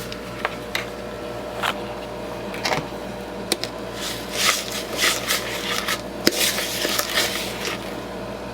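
Peanut butter and brown sugar being stirred by hand in a bowl: a utensil scraping and knocking against the bowl, with scattered clicks at first and denser scraping in the second half.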